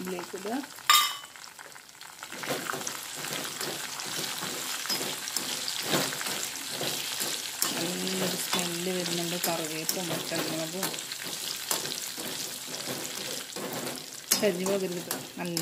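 Cashew nuts frying in hot oil with dried red chillies and curry leaves in a stainless steel kadai: a steady sizzle that builds from about two seconds in, with a slotted metal spatula stirring and scraping the pan. A single sharp metal clink about a second in.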